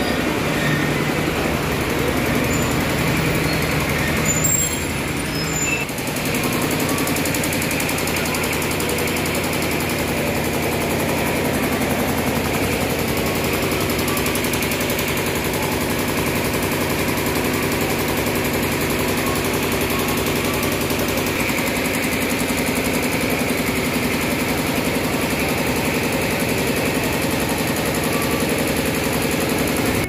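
A train's diesel engine running steadily at idle beside the platform, with a fast, even throb.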